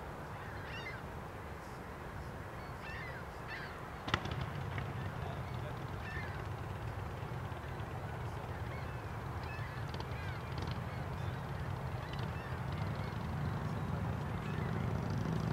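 Birds calling in short, scattered chirps over a steady low outdoor rumble that slowly grows louder, with one sharp click about four seconds in.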